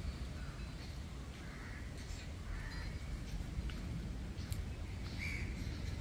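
Crows cawing now and then among other short bird calls, over a steady low rumble.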